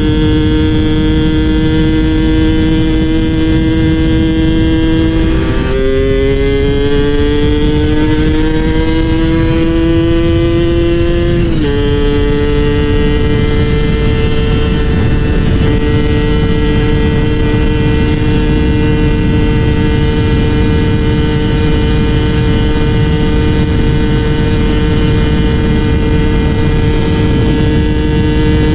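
Two-stroke single-cylinder engine of a Yamaha F1ZR motorcycle under way, running at steady revs. About six seconds in its pitch climbs as it accelerates; near twelve seconds it drops suddenly, then holds steady for the rest.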